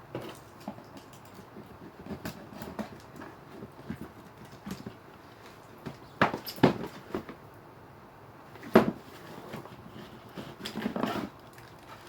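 Shoes and their box and packing being handled: scattered taps, knocks and rustles, with one sharp, louder knock about nine seconds in.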